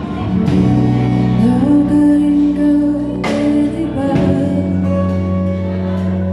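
Live band playing a song: women singing over drums, keyboard, electric guitar, bass guitar and acoustic guitar.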